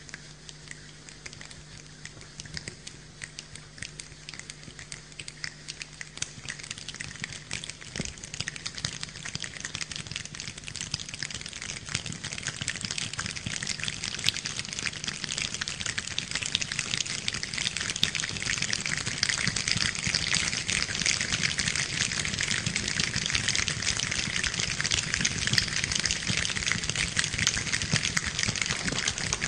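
A choir imitating a rainstorm with their hands: a dense patter of many finger snaps and hand sounds that builds steadily from faint to loud, like rain gathering strength.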